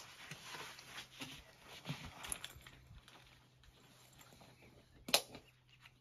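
Rustling and small clicks of a hiking backpack being handled and its straps adjusted, with one sharp click about five seconds in.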